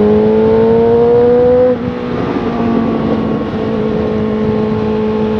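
Motorcycle engine at highway speed, rising slightly in pitch as it accelerates. It drops back about two seconds in and then holds a steady cruise, with wind rush on the helmet microphone throughout.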